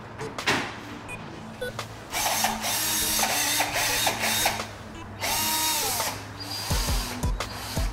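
Cordless drill's motor run twice: a run of about two and a half seconds, then a shorter one of about a second, the whine rising as it spins up and falling as it winds down. A few low knocks follow near the end.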